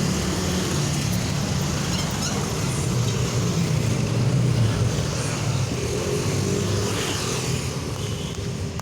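Road traffic passing close by: a steady low engine rumble over a rushing roar, swelling slightly about four to five seconds in.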